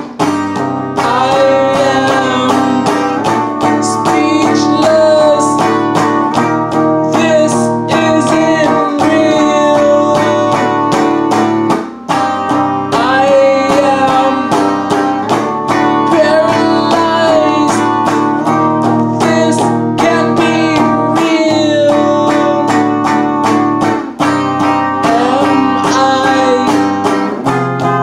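A man singing while strumming chords on a solid-body electric guitar, a steady run of quick strums under the sung melody. The playing drops out briefly about twelve and twenty-four seconds in.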